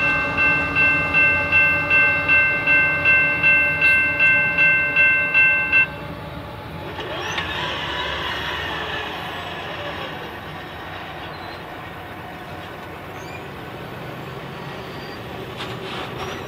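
Railroad grade-crossing bell ringing in quick even strokes, about three a second, cutting off suddenly about six seconds in as the train clears the crossing. A softer steady rumble of the departing BNSF train follows.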